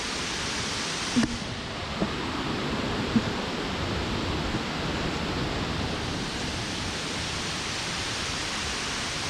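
Steady rushing roar of a nearby waterfall, even and unbroken, with a couple of light knocks in the first few seconds.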